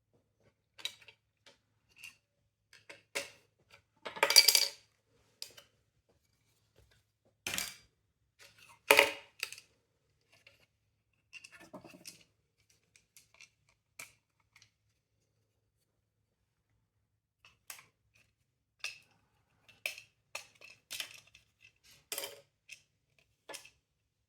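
Small hard plastic parts of a window vacuum cleaner being handled while it is taken apart or put back together: scattered clicks and knocks, with two louder clattering rattles about four and nine seconds in.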